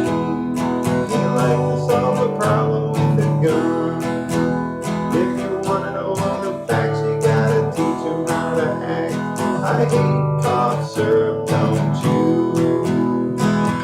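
Acoustic guitar strummed in a steady rhythm, ringing chords with no singing, as an instrumental break in a rock song cover.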